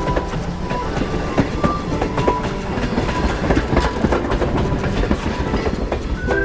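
Railway train running along the track, its wheels clicking over the rail joints in a steady run of sharp clacks over a rumble.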